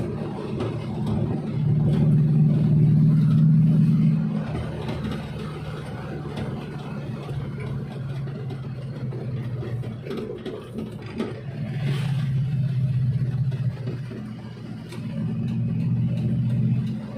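Suzuki Espass van engine running while driving. Its low hum swells louder with acceleration a few seconds in and twice more in the second half.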